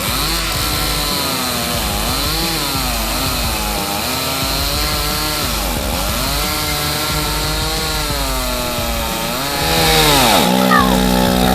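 Chainsaw engine running, its pitch rising and falling again and again as the throttle is worked. Near the end it gives way to a louder, steady lower tone.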